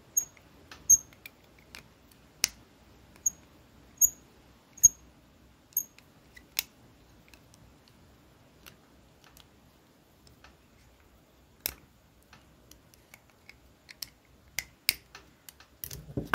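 Sharp, irregular clicks and light metallic clinks of small brake master cylinder parts being handled, several with a short high ring. They come thick in the first few seconds, thin out, and bunch together again near the end.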